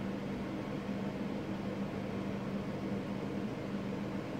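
Steady low hum of an air conditioner running, with one constant low tone under a soft even hiss.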